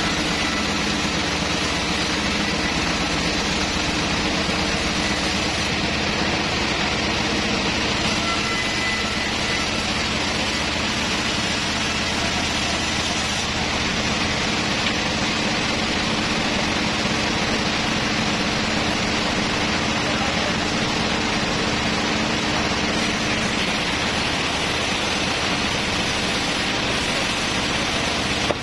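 Large sawmill log saw and its drive running steadily, a constant loud mechanical noise with a low hum that holds even.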